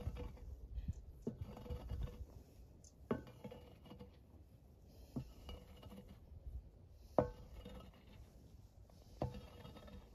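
A metal-bladed hand tool striking the ground at a steady pace, about once every two seconds. Each strike gives a sharp knock with a short metallic ring.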